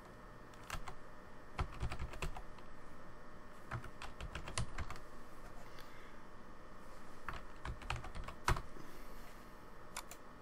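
Computer keyboard keystrokes typing a file name, in short irregular runs of clicks, with one louder stroke near the end.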